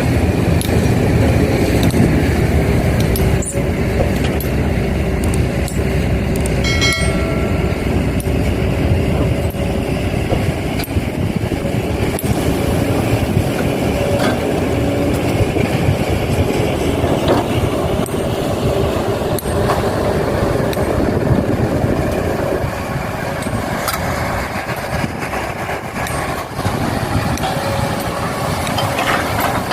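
Excavator and dump truck engines running steadily while soil is loaded, with a brief high tone about seven seconds in.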